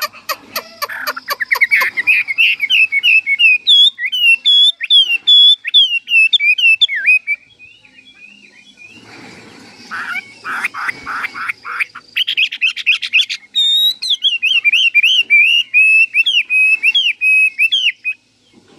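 Chinese hwamei (melodious laughingthrush) singing a long, loud song of rapid, varied whistled phrases. About halfway through the song breaks off into harsh rasping notes for a few seconds, then the whistling resumes.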